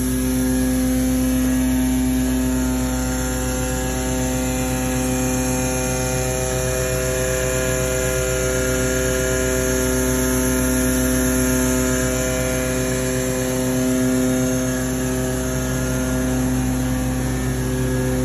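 A machine running steadily at constant speed: a steady hum made of several fixed tones over a hiss.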